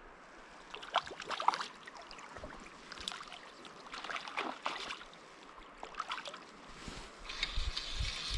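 Stream water running, broken by several short irregular splashes. Wind rumbles on the microphone near the end.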